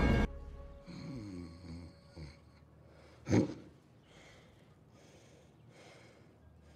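Music cuts off abruptly. Then come a young man's faint groans and breathing as he comes round dazed, with one short, louder vocal sound about three seconds in.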